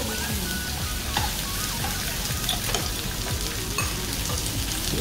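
Pork belly and pork neck sizzling steadily on a tabletop grill pan, with a few sharp clicks of metal tongs and scissors on the meat and pan.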